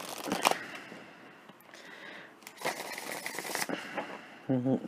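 Tarot cards being handled and shuffled: a few soft clicks, then about a second of rustling card noise midway. A brief murmur of voice comes near the end.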